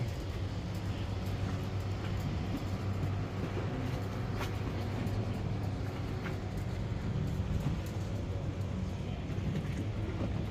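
Steady low engine hum of a small boat under way. A single sharp click comes about four and a half seconds in.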